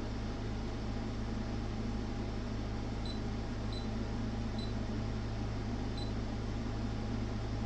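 Steady low mains hum and fan noise from bench test equipment, with four short high beeps about three to six seconds in, typical of a digital oscilloscope's front-panel keys being pressed while setting up a measurement.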